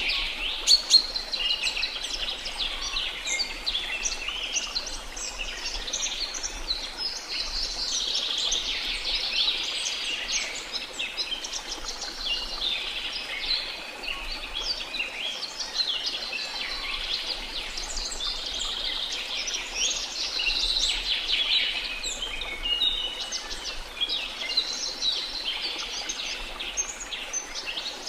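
A dense chorus of many birds chirping and trilling at once, short high calls overlapping without pause over a faint steady background hiss, with one sharp click about a second in.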